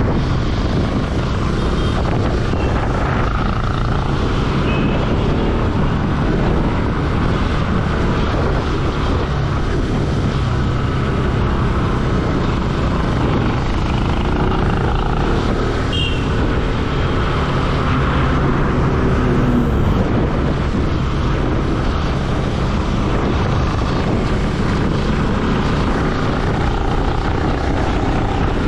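Motorcycle engine running steadily at riding speed, with wind rushing over the bike-mounted camera's microphone.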